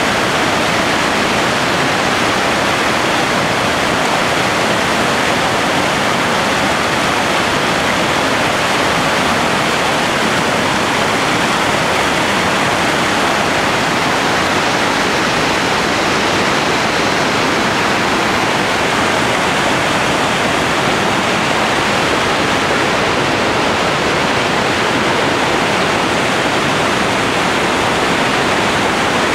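Merced River's white water rushing through the Happy Isles rapids: a loud, steady rush with no let-up.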